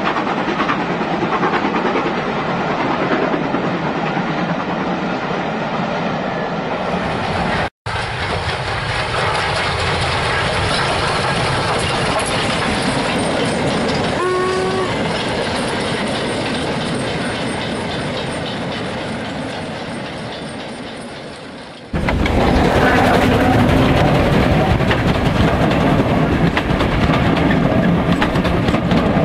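OO-gauge model trains running past on the layout's track: an even clatter of small wheels over the rail joints with the running of the locomotive motors, in three separate passes with abrupt changes between them. A brief pitched tone sounds about halfway.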